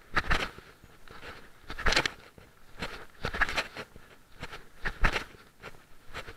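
Footsteps: short scuffing crunches at an uneven pace, about one a second.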